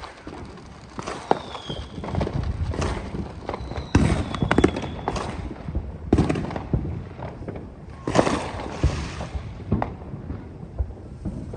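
Fireworks going off all around: a string of bangs and crackling pops, loudest about four, six and eight seconds in, with two short high whistles.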